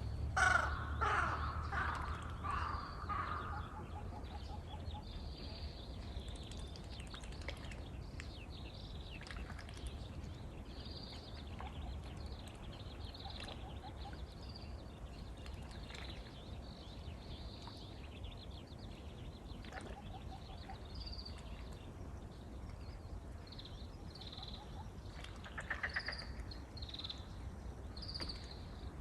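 A crow caws several times in a row near the start, and again briefly near the end. Small birds chirp in between over a low steady rumble.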